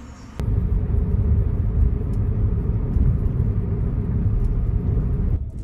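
Steady low rumble of a car driving, road and engine noise heard from inside the cabin; it starts abruptly about half a second in and drops away near the end.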